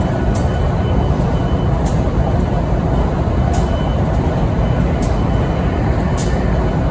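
Diesel-electric freight locomotive idling with a steady, heavy low rumble. A short, high tick comes back about every second and a half: the strange noise this idling unit makes.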